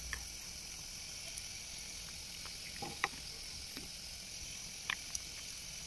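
Rice boiling hard in an open pressure-cooker pot on a gas stove: a faint, steady hiss with a few scattered small pops.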